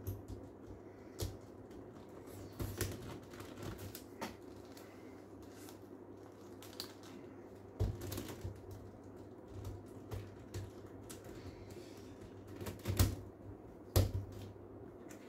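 Plastic pieces of a 6x6 speedcube clicking and snapping as they are pressed into place and turned by hand during assembly, at an irregular rate. The two loudest clicks come about a second apart near the end.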